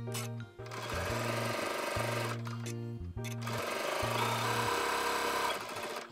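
Janome sewing machine stitching along the edge of a quilted patchwork panel, running in several short stretches with brief breaks and stopping about three-quarters of the way through. Background music plays throughout.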